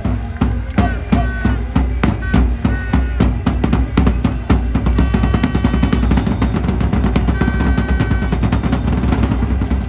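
Stadium cheer drums beating a fast, steady rhythm over cheer music, with a few short held melody notes. From about halfway through the beats come closer together, like a drum roll building up.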